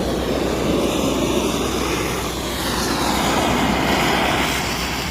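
Gas heating torch burning steadily with a loud, even rushing hiss as it preheats steel pipe before welding, driving off moisture from the wet metal. A low steady engine hum runs underneath.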